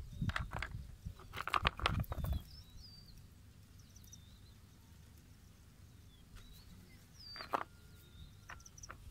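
Rustling handling noise with a few sharp knocks as stones are picked up and moved about, strongest for the first two seconds and again briefly near the end. Small birds chirp now and then in the background.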